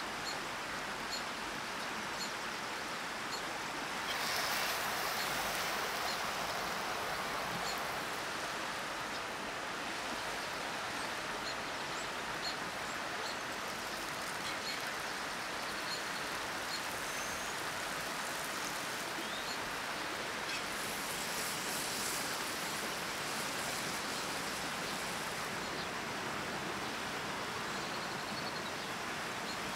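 Steady outdoor rushing hiss of ambient background noise, swelling a little about four seconds in and again after about twenty seconds, with faint short high chirps now and then.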